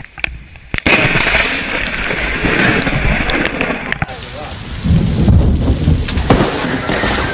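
A close lightning strike: a sudden loud thunderclap about a second in, rumbling on for a few seconds. Then heavy rain with a low rolling thunder rumble and another sharp crack near the end.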